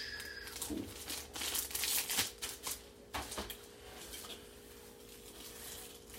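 Thin clear plastic bag crinkling and rustling as hard plastic CGC graded comic slabs are handled, with light clicks and clacks of the slabs; busiest in the first three seconds or so, then sparser.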